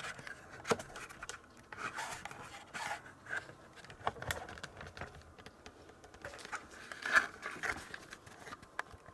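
Handling noise: irregular light clicks, taps and short scraping rustles, with one sharper click just after seven seconds in.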